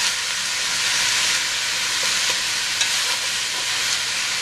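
Chicken pieces, celery, onions and carrots frying in olive oil in a stainless steel pot over high heat: a steady sizzling hiss, with a plastic spatula stirring and scraping now and then.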